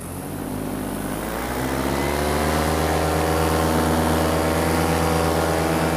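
Vittorazi Atom 80 two-stroke paramotor engine and propeller running in flight. Its note rises in pitch and grows louder over the first two seconds, then holds steady.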